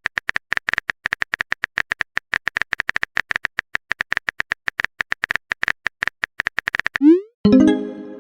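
Phone keyboard typing sound effect: a rapid, even run of short clicks, about eight a second, as a chat message is typed out. Near the end a rising swoop and a short pitched chime, the alert of a message being sent or received.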